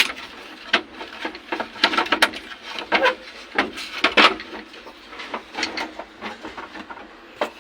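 Scattered clicks and knocks of hands and tools working loose a backhoe's ignition part, at irregular intervals.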